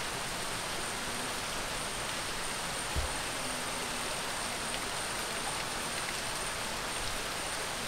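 Steady, even hiss of falling water in wet rainforest, with a thin, steady high whine held throughout and a single low thump about three seconds in.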